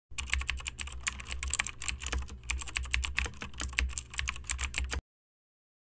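Keyboard typing sound effect: a rapid, uneven run of key clicks that stops abruptly about five seconds in, over a faint low hum.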